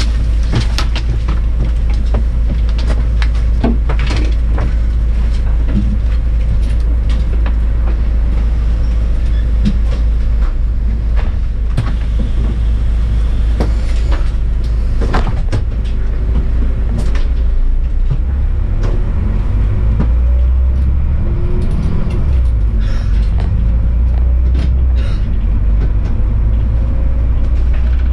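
City bus heard from inside the cabin: a steady low engine rumble with scattered knocks and rattles while it stands still, then the engine drone changes about twenty seconds in as it pulls away and drives on.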